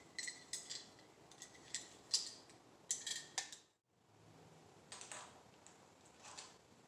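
Light clicks, taps and small rattles of bike parts being handled at a workbench, a handful of sharp ticks in the first half and softer taps after a brief moment of complete silence near the middle.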